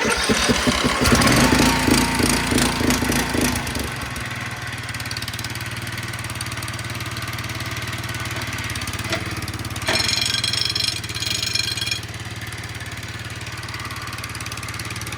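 Greenfield Evolution 3 ride-on mower engine starting abruptly and running loud and uneven for about four seconds, then settling into a steady idle. This is a test run after a new V idler pulley was fitted and the belt tensioned. About ten seconds in, a high whine sounds for two seconds.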